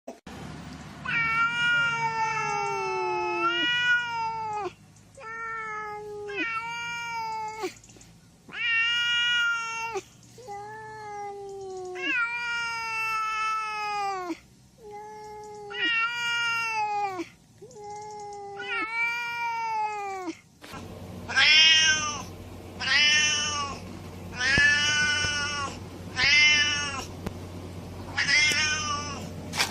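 Domestic cat meowing over and over: long drawn-out meows of one to three seconds, each bending down in pitch at the end. About two-thirds of the way in it changes to a series of shorter, higher meows that rise and fall, one every second or two, over more background hiss.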